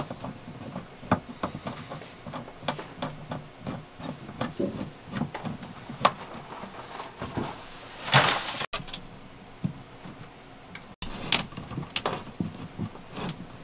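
Scattered light clicks and knocks of an aluminium wall track and its fasteners being worked into place against a felt-covered van wall panel. A brief scraping hiss comes about eight seconds in.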